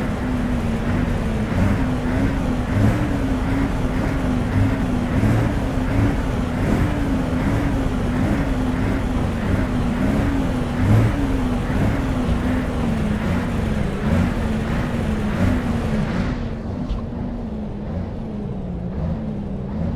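Scania R520 truck's V8 diesel engine running steadily through its stock exhaust, a low drone that wavers slightly in pitch. About four seconds before the end the sound turns duller and a little quieter.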